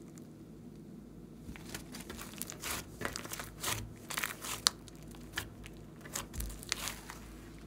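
Thick pink slime being squeezed and pulled apart by hand, giving a run of sharp crackles and pops. The crackling starts about a second and a half in, is densest in the middle and thins out near the end.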